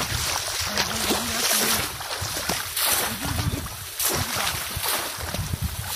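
Shallow water splashing and sloshing in repeated strokes as people wade through a flooded paddy and plunge bamboo polo fish traps down into the water.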